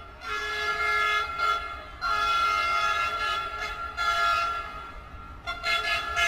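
Train horn sounding in several long blasts of one to two seconds each, separated by short breaks.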